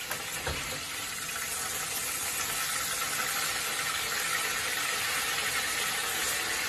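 A pan sauce of Worcestershire sauce, soy sauce and butter sizzling steadily in a hot frying pan as it is stirred, with a light knock about half a second in.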